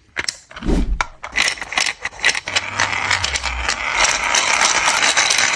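Plastic mechanism of a 3D-printed toy clicking and rattling rapidly, like a ratchet or gears being turned.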